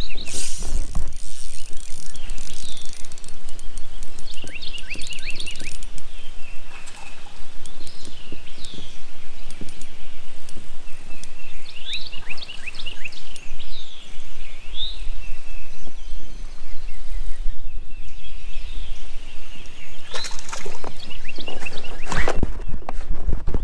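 Birds calling in clusters of quick, high chirping notes over a steady low rumble, with a louder burst of noise near the end.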